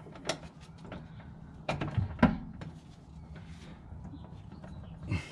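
Hand tools clicking and knocking against the VW Beetle transaxle as its drain and fill plugs are worked out with a 17 mm hex key, a few sharp knocks about two seconds in, over a steady low hum.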